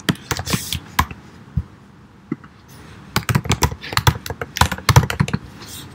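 Typing on a computer keyboard: a few keystrokes in the first second, then a quick run of keys from about three seconds in.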